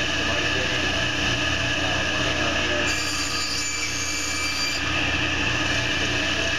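10-inch table saw running steadily while its blade crosscuts a wooden board. About three seconds in, a higher whine joins the motor hum for nearly two seconds as the blade goes through the wood.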